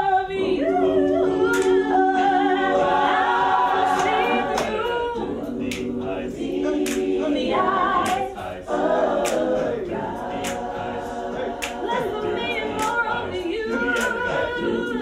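A cappella gospel vocal group singing in harmony, holding long chords, with a young woman's lead voice over the group's backing voices.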